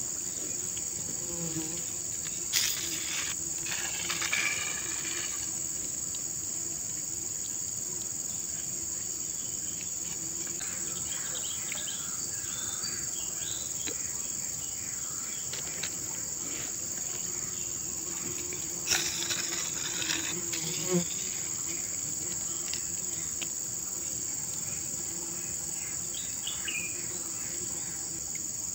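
Insects keep up a steady high-pitched chorus, with a faint low hum underneath. A few short sharp clicks or knocks stand out, once near the start and twice about two-thirds of the way through.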